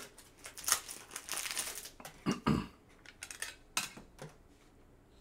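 Trading cards and their pack wrapper being handled: a crinkling rustle, then a few light clicks and taps with one low knock, as cards are sorted by hand.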